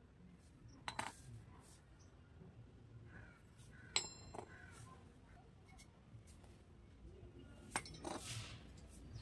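Small hard pieces of a miniature toy kitchen set being handled and set down: a few light clicks, one clink about four seconds in that rings briefly, and a short rustling scrape near the end.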